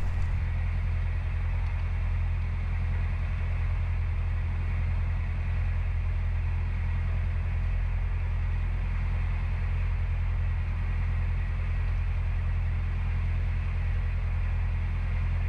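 Narrowboat's diesel engine running steadily while cruising, a low, even hum with no change in pitch.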